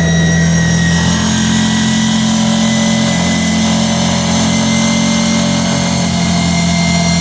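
Kawasaki Teryx side-by-side's engine running steadily while the vehicle is driven, with a slight rise in engine note about a second in.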